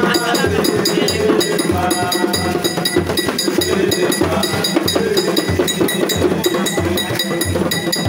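Music with a steady percussion beat, with voices talking over it.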